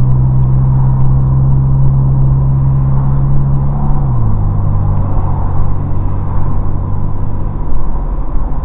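2005 Chevrolet Cobalt's four-cylinder engine and custom exhaust droning inside the cabin while driving: a steady low hum that drops in pitch about four seconds in as the revs fall, then fades near the end, leaving road rumble.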